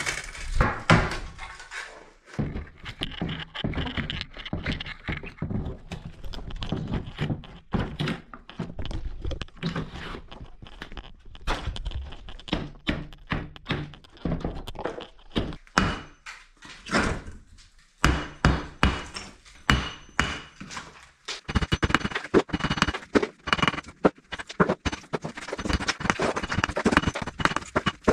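Irregular thuds, knocks and clatter of wall demolition: plasterboard panels and cornice being knocked off and broken away. The blows come faster and more densely near the end.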